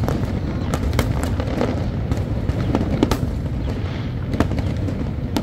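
Aerial fireworks bursting overhead: a continuous low rumble of shells with sharp bangs and crackles, roughly one every half second to second.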